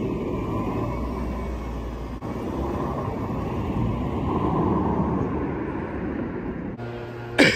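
Steady vehicle rumble: engine and road noise, changing abruptly a couple of times.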